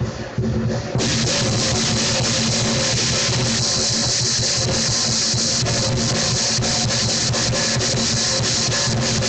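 Lion dance percussion: a drum and crashing cymbals playing a fast, steady beat, which gets suddenly louder about a second in.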